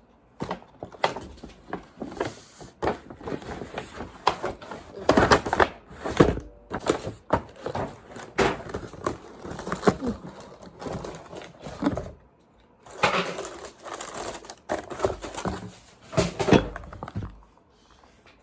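Irregular rustling, crinkling and light clattering of things being handled close to the microphone, with a short pause partway through.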